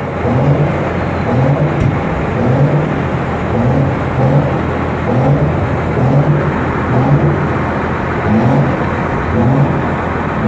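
Many tractor diesel engines revving together in a loud, continuous din. A rising pitch repeats a little more than once a second, as an engine's throttle is blipped again and again.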